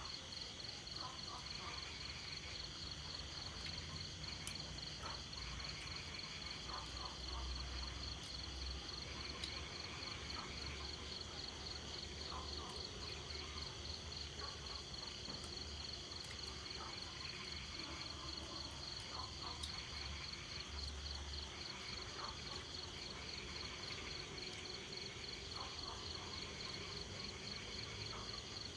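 Steady, fast-pulsing high-pitched insect chirring, like crickets, with short scattered calls from other animals and a low background rumble.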